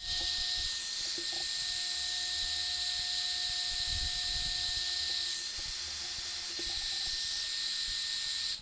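Small handheld heat gun running, its fan blowing hot air in a steady hiss with a faint high whine, heating thread-locked motor-mount screws to loosen the thread locker. It cuts off sharply at the end.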